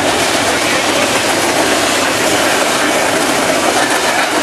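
Freight train rolling past close by, a boxcar and then double-stack container cars: a steady, loud noise of steel wheels running on the rails.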